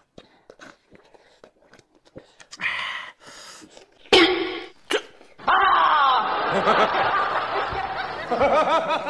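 Soft eating sounds, small clicks and bites, then from about halfway a long stretch of laughter, the loudest sound, lasting over three seconds.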